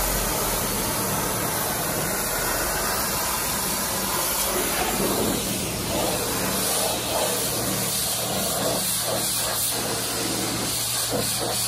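Pressure washer wand spraying a high-pressure jet of water against a jet ski's hull, a steady hiss with a steady low hum underneath.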